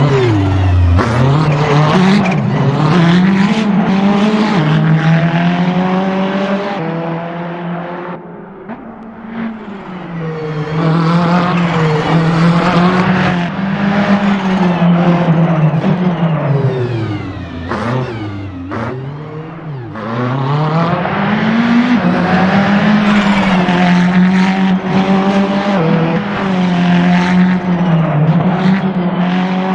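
Ferrari 488 GT3's twin-turbo V8 at full race pace. The revs climb and drop back over and over as it accelerates and changes gear, with two longer lifts about eight and eighteen seconds in.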